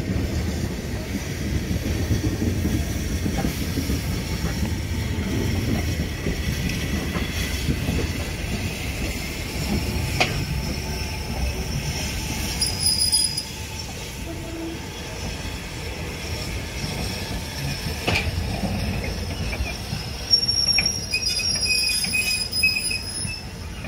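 Steam locomotive running slowly in towards the station with a steady low rumble. A short high whistle sounds about halfway through, and a longer one sounds near the end.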